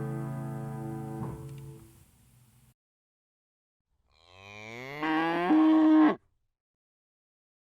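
Guitar music dies away over the first two seconds. After a pause comes a single cow moo, a call of about two seconds that rises in pitch, peaks near the end and cuts off suddenly.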